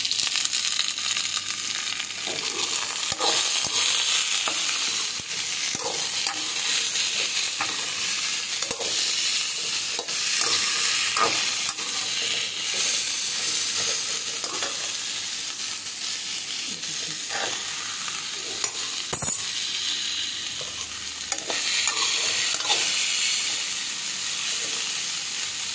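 Cauliflower and potato pieces sizzling in hot oil in a metal kadhai, with a steady hiss throughout. A perforated metal spatula stirs them, scraping and knocking against the pan every few seconds.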